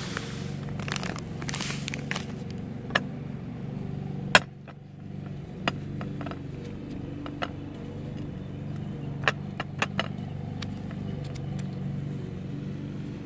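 Sugar being put into a jar over layers of chopped stinging nettle. A rustling hiss for the first two seconds or so gives way to scattered light clicks and knocks, the sharpest about four seconds in, over a steady low hum.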